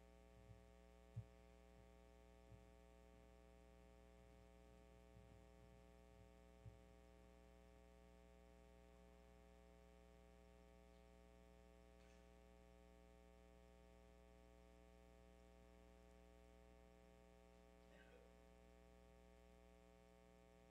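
Near silence: a steady electrical hum, with a few faint low knocks in the first several seconds.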